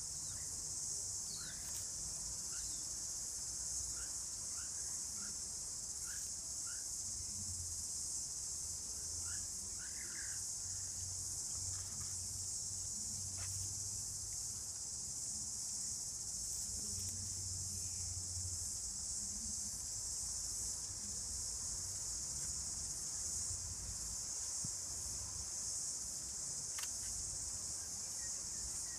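Steady, unbroken high-pitched insect chorus of crickets, with a few faint short chirps in the first half.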